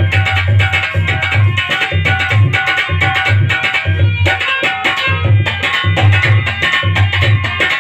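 Instrumental passage of rustic Indian devotional folk music: a hand drum plays a steady rhythm of deep beats under a sustained melody line, with sharp high strokes on top.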